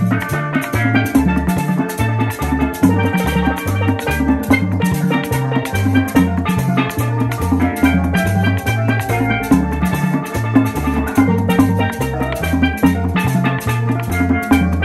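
Tropical Latin dance music: a bass line stepping from note to note under a steady beat of drum kit and percussion, with bright melodic lines above.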